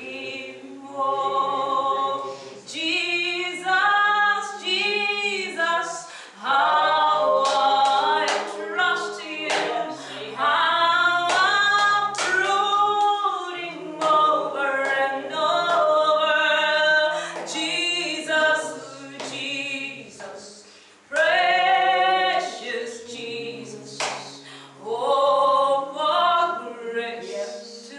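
A woman singing a slow worship song, in phrases of long held notes with short pauses between them.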